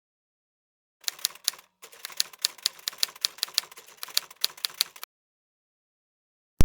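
A rapid run of sharp clicks, about five a second, starting about a second in with a brief break soon after, and stopping a second and a half before the end.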